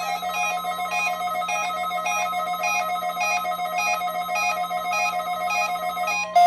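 NOAA Weather Radio's steady 1050 Hz warning alarm tone, sent as part of the weekly test, while weather radio receivers beep their alert alarms in a repeating pattern about twice a second. The steady tone cuts off just before the end, and a louder, faster receiver alarm beeping takes over.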